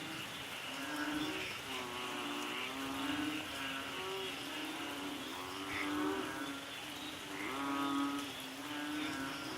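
Steady hiss of rain ambience under drawn-out, wavering moan-like tones, each about a second long, coming one after another every second or two.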